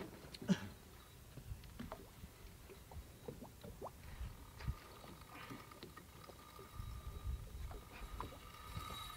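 Water lapping against a boat hull with scattered light clicks. From about halfway, a spinning reel's drag starts to sing with a steady thin whine as a big black drum pulls line off against it.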